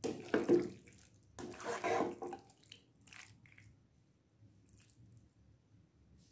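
Penne in a thick sauce being stirred and tossed with a spatula in a nonstick pan: wet, sloppy stirring sounds, loudest in two strokes during the first two and a half seconds, then only a few faint ones.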